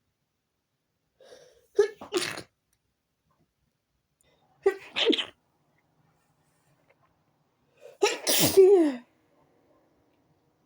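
A woman sneezing three times, a few seconds apart, from a tickly nose. The last sneeze is the loudest and longest and trails off in a falling voiced note.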